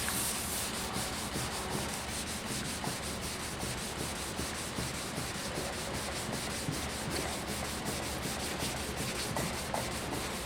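Wet sanding of a stave drum shell with 400-grit sandpaper: a steady, even scraping of quick back-and-forth strokes on the wet surface.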